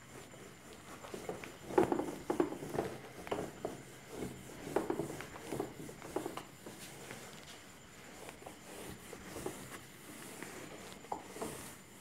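Whiteboard eraser rubbed back and forth across a whiteboard, wiping off marker writing, in a run of quick, uneven strokes that are busiest in the first half.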